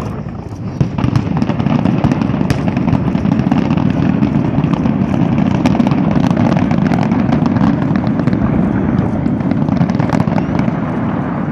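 Large fireworks display in full barrage: many rapid, overlapping bangs and crackles merging into a continuous rumble, building up about a second in and staying dense.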